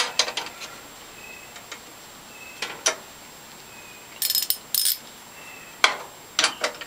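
Hand ratchet with a 5/16 socket clicking as it turns a fastener on the dryer's coin mechanism, in scattered metal clicks with a short run of quick ratchet clicks about four seconds in.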